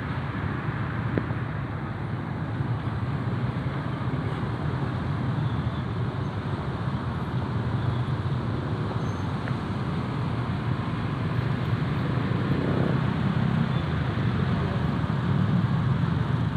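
Steady road traffic noise from vehicles passing at a level crossing, growing somewhat louder in the last few seconds.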